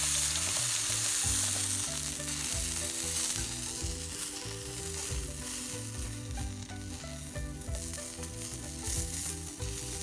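Magpie breast pieces sizzling in hot oil in a pan, loudest for the first two seconds and then thinning out.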